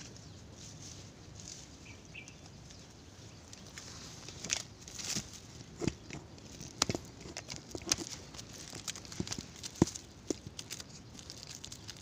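Leaves and stems rustling and snapping as someone moves through dense leafy undergrowth, in irregular crackles and clicks from about four seconds in. Before that there is only a faint outdoor background with two short high chirps.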